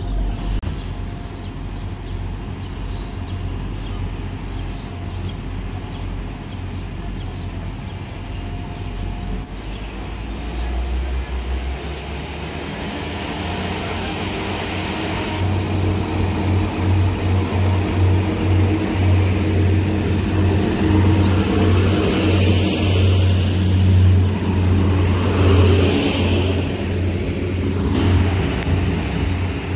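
Class 175 diesel multiple unit ticking over at the platform, then its diesel engines powering up as it moves off, the low engine hum growing steadily louder through the second half. A high whine rises in pitch about twelve seconds in and then holds steady.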